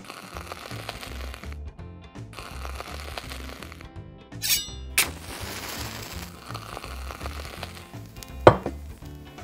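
Background music with a steady beat, with two sharp clicks midway. Near the end comes one loud knock with a short ring as a miniature stainless-steel saucepan is set down on a tiny stove.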